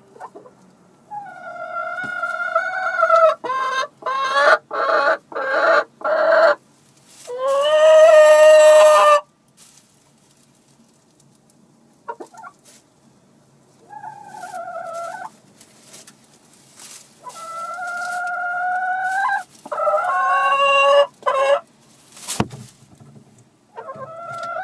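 Domestic hens calling: a drawn-out call, then a run of short clucks about two a second, then one long loud squawk. After a quiet spell, more calls come later on.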